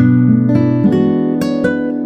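Background music: acoustic guitar playing strummed and plucked chords.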